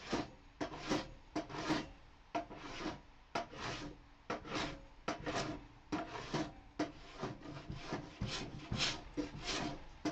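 Hand plane cutting across reclaimed pallet-wood boards in quick, short rasping strokes, about two a second, flattening the high spots of a workbench top.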